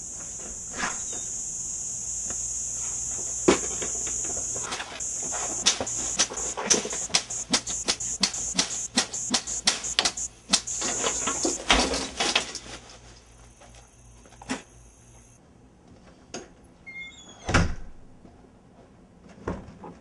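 A cicada buzzing steadily on one high pitch, then falling silent about 15 seconds in. Over it comes a rapid, irregular run of knocks and bangs for several seconds, with a few more thumps near the end.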